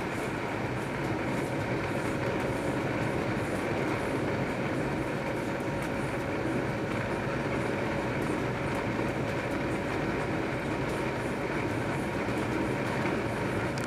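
Running noise heard inside a DB Regional Express train at steady speed: a continuous rumble of wheels on rails, with a faint steady whine above it.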